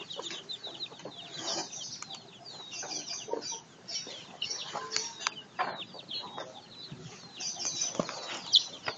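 Young chickens peeping over and over: many short, high chirps that fall in pitch, with a few soft clicks among them.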